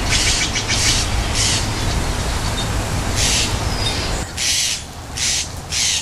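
Steller's jays giving a series of short, harsh, rasping calls: several in quick succession in the first second, then single calls spaced a second or so apart toward the end.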